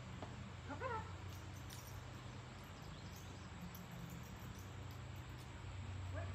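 A dog gives two short, high whines: a wavering one about a second in and a brief rising one near the end, over a steady low hum.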